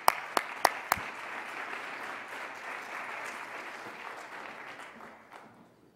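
Audience applauding, with a few loud, sharp claps close to the lectern microphone in the first second; the applause dies away near the end.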